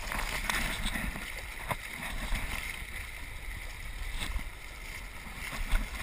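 Shallow surf washing and splashing around a microphone held at water level, with a low rumble of water buffeting it and two sudden thumps, the louder one near the end.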